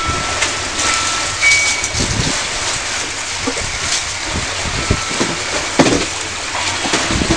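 Wind buffeting the microphone in uneven gusts over the rush of choppy water.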